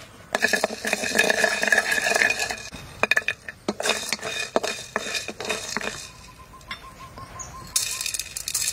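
A wooden spatula stirring and scraping dry whole peppercorns, star anise and a cinnamon stick around a steel wok; the peppercorns rattle and the wok rings. There is a dense rattle at first, then separate clicks. Near the end more peppercorns are poured in from a bowl.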